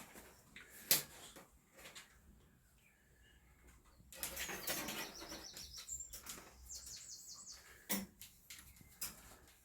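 A small bird chirping in quick runs of short, even high notes, twice, about four and a half and about seven seconds in, with a sharp click about a second in and another knock near eight seconds.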